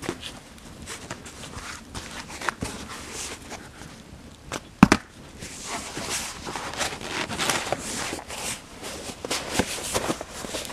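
Wood fire in a metal burn drum crackling, with irregular pops and one sharp loud snap about five seconds in.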